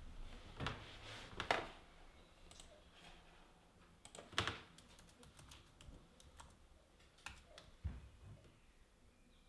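Laptop keyboard and trackpad being tapped and clicked, in sparse, irregular, quiet clicks. The sharpest click comes about four and a half seconds in.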